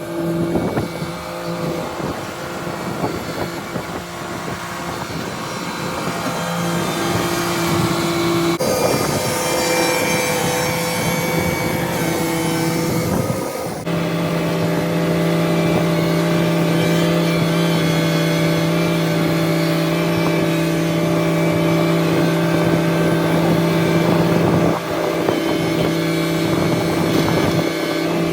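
Tractor engine running steadily, its sound shifting abruptly about a third of the way in and again about halfway through.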